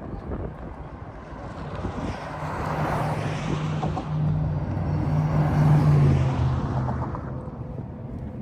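A motor vehicle driving past close by. Its engine hum and tyre noise build up, are loudest about six seconds in, then fade away.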